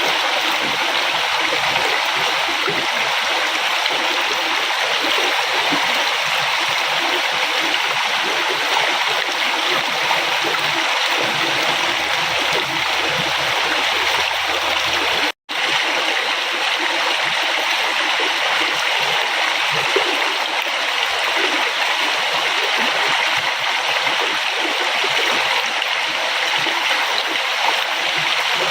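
River water flowing and rushing steadily over rocks, with splashing and gurgling. The sound drops out completely for an instant about halfway through, then carries on as before.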